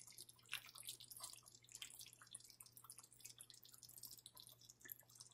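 Faint, irregular wet ticks and pops from a pot of just-cooked brown stew chicken in gravy as a spoon moves through it, over a low steady hum.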